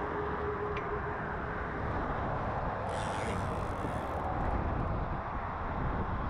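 Steady road traffic noise from vehicles on the bridge, with wind rumbling on the microphone and a brief rise in hiss about three seconds in.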